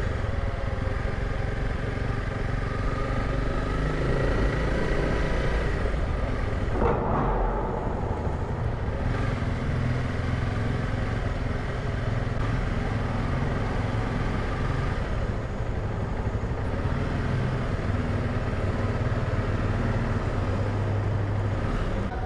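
Honda CRF300 Rally's single-cylinder engine running as the bike is ridden slowly up a ramp and along a ferry's vehicle deck, with a brief knock about seven seconds in.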